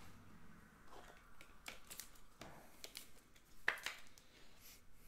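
Faint, scattered clicks and rustles of trading cards being handled and sorted, with one sharper click a little past the middle.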